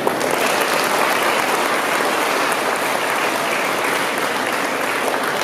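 Audience clapping, starting abruptly and holding steady, thinning a little near the end.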